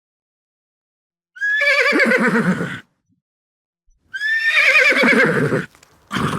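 Horse whinnying: two long neighs about three seconds apart, each starting high and sliding down in a wavering, shaking pitch, then the start of a third cut short at the end.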